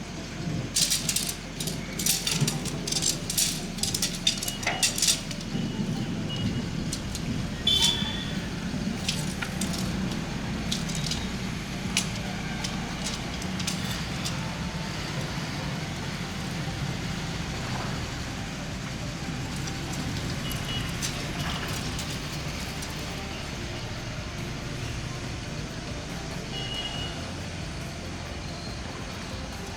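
Steady rain with a low rumble underneath. Through the first half, a run of sharp clicks and rattles from camping gear being handled while a tent is put up, thinning out later.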